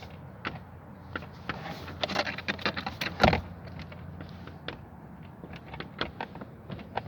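Garage door and its electric opener running, a steady low hum with scattered clicks and clanks from the door, the loudest clank about three seconds in; the door will not close.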